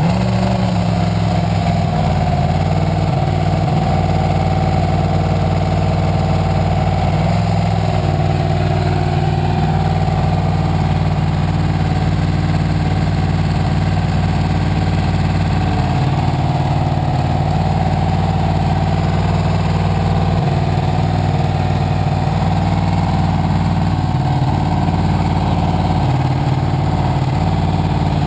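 Formula SAE race car engine idling steadily at a loud, even level, with an idle that sounds real choppy rather than smooth.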